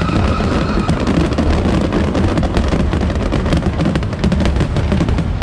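Fireworks going off without pause: dense crackling over heavy low booms. Background music with a held note fades out about a second in.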